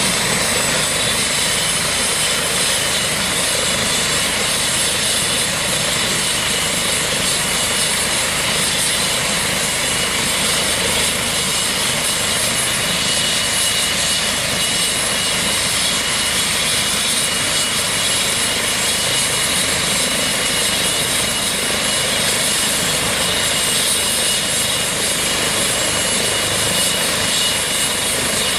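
Eurocopter EC135 trauma helicopter running on the ground before lift-off: steady turbine and rotor noise with a high, even whine over it.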